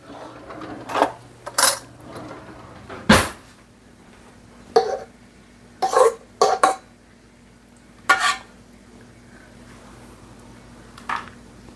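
A metal spoon clinking and knocking against a stainless steel stand-mixer bowl, about nine separate sharp strikes with the loudest about three seconds in. A faint steady hum runs beneath.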